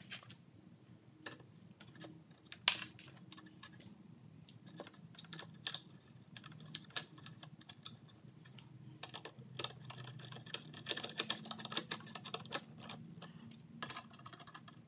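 Light metal clicks and taps of a sheet-metal engine cover plate being fitted and its bolt started with a nut driver, with one sharper knock about three seconds in and a quick run of clicks in the last few seconds.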